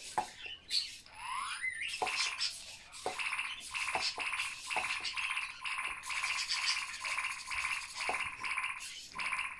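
LittleBits Space Rover toy robot making a buzzy electronic sound, which its builder calls music, as its servo arm swings back and forth. There is a rising sweep about a second in, then a continuous rough buzz with light clicks about once a second.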